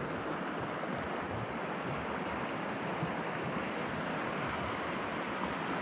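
Shallow river flowing steadily over a rocky bed: a continuous, even wash of water noise.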